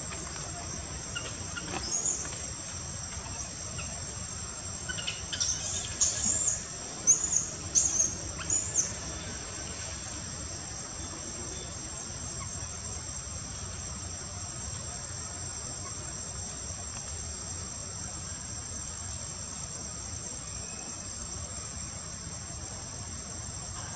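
Steady high-pitched drone of insects, with a few short high chirps between about five and nine seconds in.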